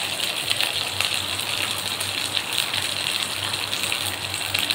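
Hot oil sizzling and crackling steadily in a steel pot as a tempering of whole spices such as panch phoron, bay leaf, dried red chilli and chopped green stalks fries, with many small pops from the seeds.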